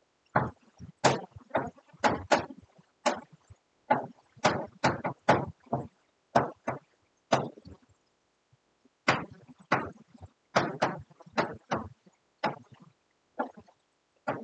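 Chalk writing on a chalkboard: a run of short, sharp taps and scrapes as figures are written, with a pause of about a second and a half midway.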